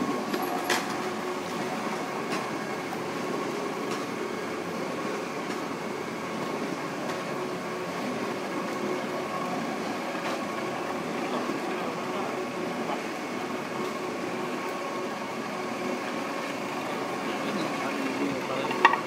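SUS304 stainless-steel shaftless screw conveyor running under test, its drive motor and turning spiral making a steady mechanical drone with a constant hum.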